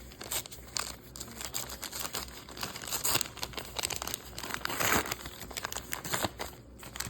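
A sealed 1981 Topps card pack being torn open, its wrapper crinkling and crackling, with louder tearing rushes about three and five seconds in.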